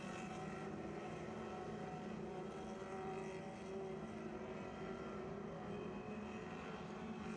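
A pack of Lightning Sprint race car engines running steadily at pace speed, several engine tones layered into one even drone, as the cars circle in formation before a restart.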